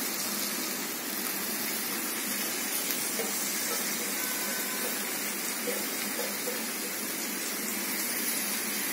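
Marinated chicken and sliced onions sizzling steadily in hot oil in a kadai over a high gas flame.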